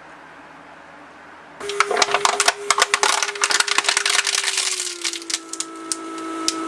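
Repaired Mercedes S-class central locking vacuum/pressure pump starting about a second and a half in and running with a steady hum whose pitch sinks slightly as vacuum builds, while a soft plastic bottle on its vacuum port crackles as it collapses. The pump cuts off at the end once enough vacuum is reached, a sign that it builds and holds good vacuum.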